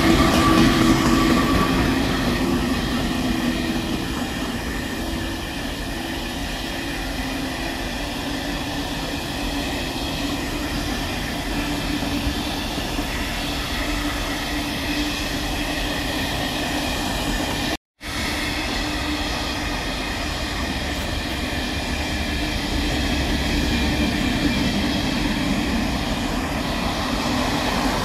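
Freight train of loaded hopper wagons rolling past, a steady rumble of wheels on rails; the locomotive's whine fades over the first couple of seconds. The sound cuts out abruptly about two-thirds through, then steady train running noise resumes and grows a little louder near the end.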